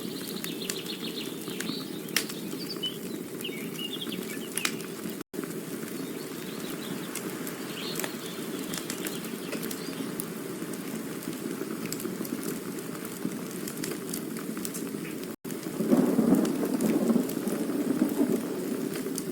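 Campfire burning with a steady low rushing hiss and scattered sharp crackles and pops; the rush swells louder about 16 seconds in. The sound drops out for an instant twice, about 5 and 15 seconds in.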